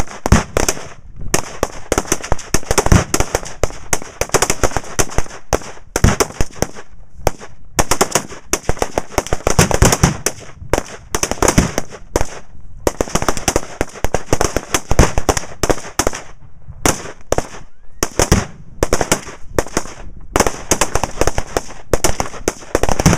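Rapid, overlapping rifle fire from a line of shooters, including a .308 semi-automatic M1A SOCOM II close by, many shots a second with short pauses. It is mixed with the booms of reactive explosive targets going off downrange.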